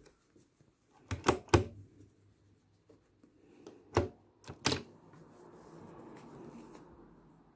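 Sharp clicks and knocks from hands working at a domestic sewing machine while bias strips are set under the presser foot. There is a quick run of three about a second in and three more between four and five seconds, with faint fabric rustling between.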